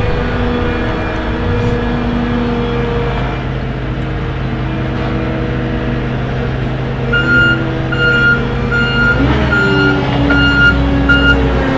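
XCMG XC7-SV12 skid steer loader's engine running steadily; about seven seconds in its backup alarm starts beeping, about two beeps a second, as the machine reverses, and the engine note shifts a couple of seconds later.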